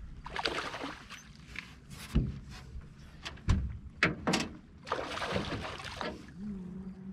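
Water splashing at the side of a small boat as a smallmouth bass is brought into a landing net, with several dull knocks against the hull.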